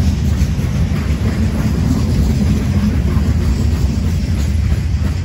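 Freight train cars rolling past, a steady, heavy low rumble of wheels on the rails.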